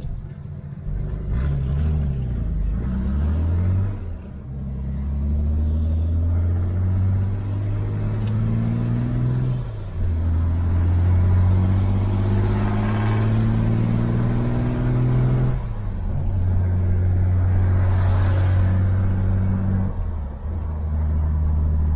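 Chevrolet Opala engine heard from inside the cabin, accelerating and climbing in pitch up through the gears, with the revs dropping at each of four upshifts.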